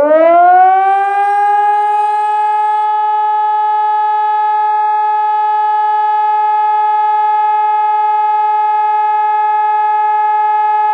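ECN 600 civil-defence siren on test, its tone climbing in pitch over about the first two seconds and then holding one steady, loud wail.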